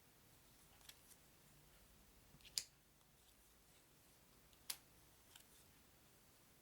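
Near silence broken by a few faint, sharp clicks, two of them clearer than the rest: stiff game cards being handled and laid down one at a time.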